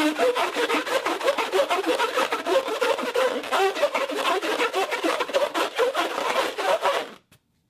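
Inflated rubber balloon being rubbed and squeezed to make a foley moaning sound: a rapid string of short, wavering squeaks and groans that cuts off about seven seconds in.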